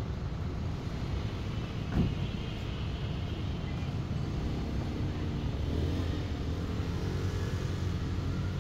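Low, steady rumble of a motor vehicle running, with a single sharp knock about two seconds in.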